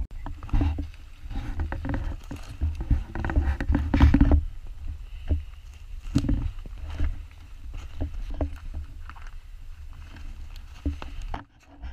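Footsteps crunching through snow, with clothing rustling against the microphone under a low rumble of wind or handling noise. The rumble cuts off suddenly near the end.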